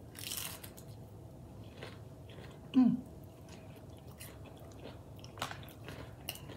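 A person biting into a battered fried onion ring and chewing it, with a crunch at the first bite and scattered small crunches and mouth clicks after. About three seconds in comes a short hummed "mm", the loudest sound.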